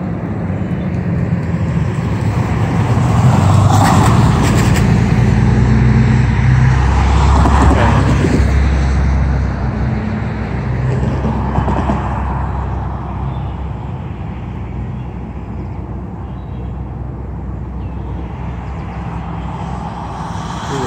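Diesel freight locomotive idling with a steady low hum. A road vehicle goes by, louder for several seconds from about three seconds in.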